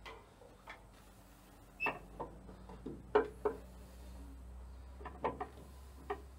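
Hand tools and metal parts clinking and knocking against a tractor engine during a water pump replacement: irregular sharp clicks, the loudest about three seconds in and a quick cluster near the end.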